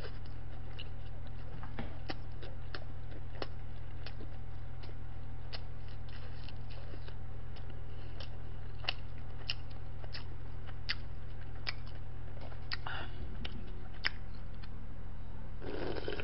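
Close-miked chewing with scattered small wet mouth clicks over a steady low electrical hum. Near the end comes a louder slurp as broth is drunk straight from a stainless-steel bowl.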